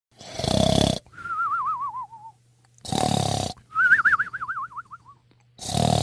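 Cartoon snoring sound effect: a rasping snore on the in-breath followed by a high warbling whistle that wobbles and slides down in pitch on the out-breath. It repeats about every two and a half seconds: three snores and two whistles.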